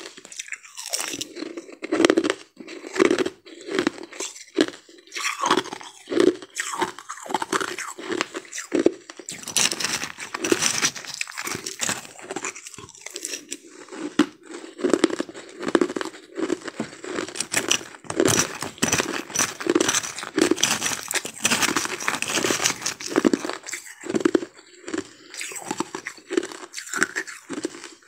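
Ice crunching over and over in quick, irregular crunches, several a second.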